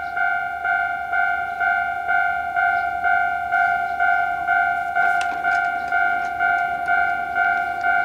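Japanese railway level-crossing warning bell, the standard electronic type, sounding a repeating two-tone 'kan-kan' at about two and a half strokes a second. There is a short clatter about five seconds in.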